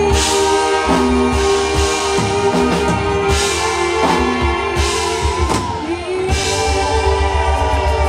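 Live band music with a woman singing into a microphone over electronic keyboard and a steady drum beat, with long held notes.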